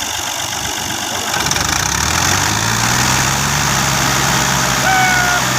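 Tractor diesel engine running, then revving up about a second and a half in and holding at high revs under load. A brief high call sounds over it near the end.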